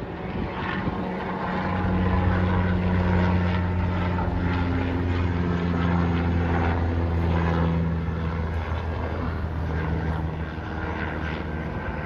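Bell 206L-4 LongRanger IV helicopter flying overhead: a steady low drone of its rotor and turbine engine, growing louder about two seconds in and easing off a little over the last few seconds.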